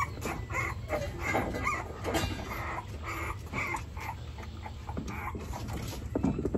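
Puppies whimpering and squeaking in short, high calls, a few each second, while they are fed soft food.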